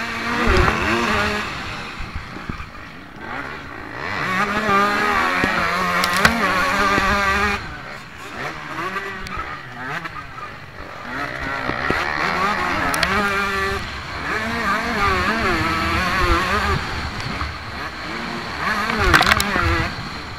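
Motocross bike engine revving hard and dropping back again and again as it is ridden round the track at race pace, heard from a camera mounted on the bike. The throttle is chopped suddenly near the middle, then the revs climb again.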